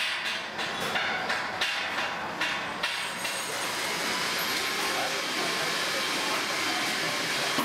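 Hammer blows struck in a steady rhythm, about two and a half a second, for the first three seconds. Then a steady, even rushing noise takes over.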